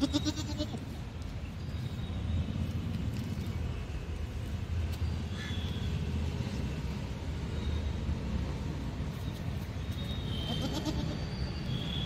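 A young goat bleats twice: a short wavering bleat at the start and another near the end, over a steady low background rumble.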